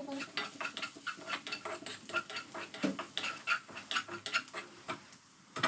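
A spatula scraping and tapping against a frying pan while food is stirred and turned: a quick, irregular run of clicks and scrapes.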